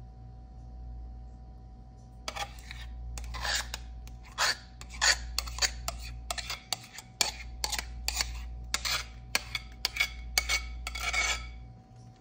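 A utensil scraping a thick cream-cheese mixture out of a ceramic bowl, in a series of short scraping strokes about two a second. The strokes start about two seconds in and stop shortly before the end.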